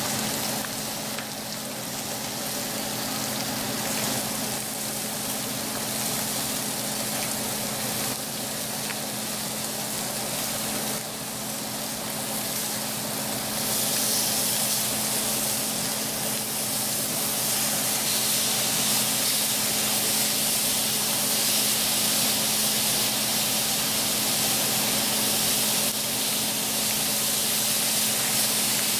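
Hot oil sizzling steadily, first under potatoes frying in a pan, then under thin pork chops searing on a griddle plate, the sizzle louder from about halfway through. A steady low hum from the kitchen extractor fan runs underneath.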